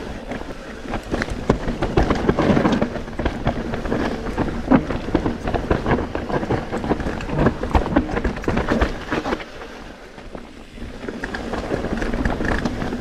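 Forbidden Dreadnought full-suspension mountain bike riding fast down a rough trail: tyres rumbling over dirt and rock, with a constant clatter of chain and frame knocks and a low wind buffet on the chest-mounted camera. It eases off briefly about ten seconds in, then picks up again.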